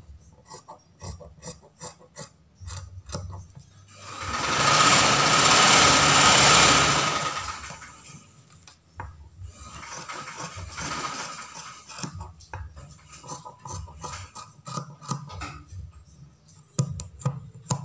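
Scissors snipping through fabric in short clicks and crunches. A loud rasping rustle swells and fades over about four seconds a few seconds in, with a fainter one later.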